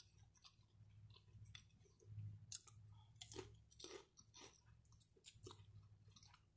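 Faint close-up chewing of cheesy shrimp nachos, with irregular soft crunches of tortilla chips and small mouth clicks.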